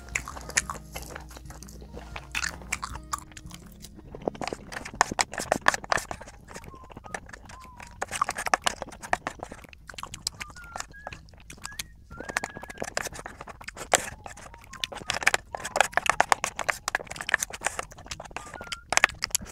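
Close-miked chewing of rice and stir-fried kimchi with crunchy side dishes from a Korean lunchbox, with irregular crisp crunches and wet mouth clicks. Soft background music fades out in the first few seconds.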